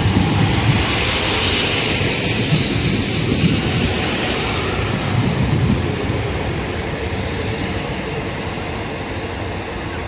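Train of several coupled Class 153 diesel railcars running past and away, their underfloor diesel engines and wheels on the rails giving a steady rumble, with a high hiss that stops about nine seconds in as the train recedes and grows quieter.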